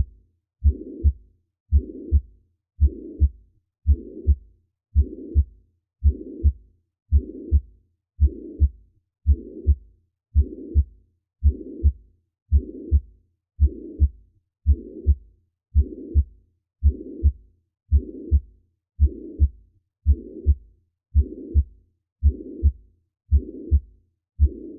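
Heart sounds with a holosystolic murmur: each beat's two heart sounds, S1 and S2, are joined by a continuous blowing murmur filling all of systole. The rhythm is steady, a little over one beat a second.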